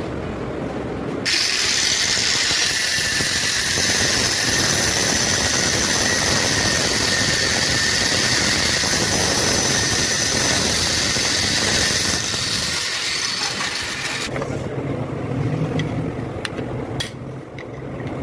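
Loud, steady hiss of compressed air that starts abruptly about a second in and cuts off suddenly after about thirteen seconds. It is followed by a few sharp metallic clicks.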